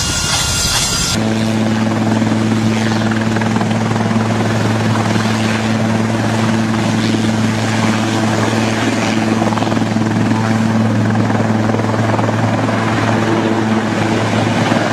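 Air ambulance helicopter hovering low and setting down, its rotor and turbine running steadily with a constant hum under a rushing noise. About a second in, this sound replaces an abrupt, brighter hissing noise.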